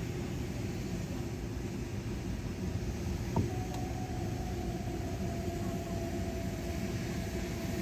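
Car driving slowly, heard inside the cabin: a steady low engine and road rumble with a steady hum. A single click comes a little over three seconds in, and a faint higher hum joins just after it.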